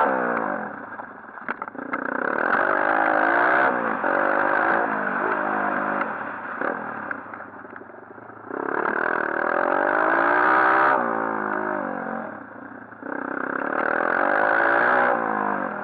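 140cc pit bike's single-cylinder four-stroke engine revving hard in three long bursts of throttle, the pitch falling away between them as the rider backs off, with a few light knocks from the bike.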